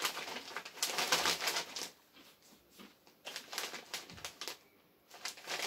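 Crunchy cheddar corn snack being chewed: dense crackling crunches for about two seconds, then two shorter bouts of crunching after quiet gaps.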